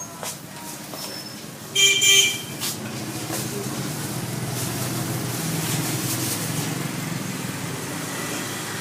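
A short honk of a vehicle horn about two seconds in, followed by a steady motor vehicle engine hum.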